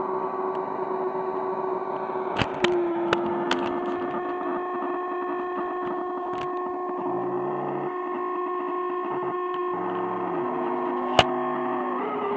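Electronic noise machine droning with steady, feedback-like tones. There are a few sharp clicks a couple of seconds in, low notes stepping up and down in pitch in the second half, and one loud click near the end.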